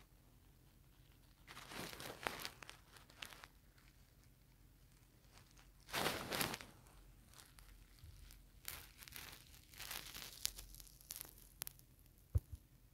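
Short bursts of rustling and crinkling, a few seconds apart, the loudest about six seconds in, with a patch of scattered crackles near the end.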